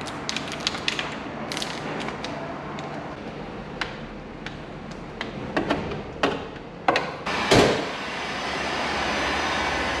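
Workshop sounds of car work: scattered clicks and knocks over a steady background hum, busier around two thirds of the way through, with one louder, short burst of noise about seven and a half seconds in.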